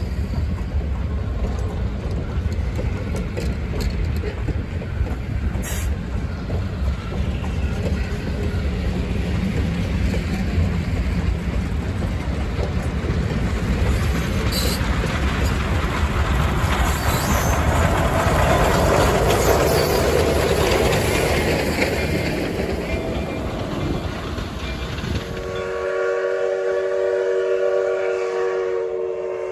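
A steam-hauled train of heavyweight passenger cars rolls past, a steady rumble with wheels clattering over rail joints, loudest about two-thirds of the way through. Near the end the rumble cuts off and an electric rail car's horn sounds a steady multi-note chord.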